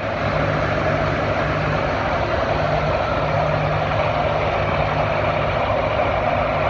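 A farm tractor's engine running steadily and loudly, with no revving up or down and a low steady hum underneath.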